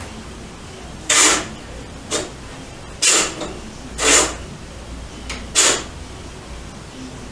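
Curtains pulled along their rail: five short sliding swishes over about five seconds, above a low steady room hum.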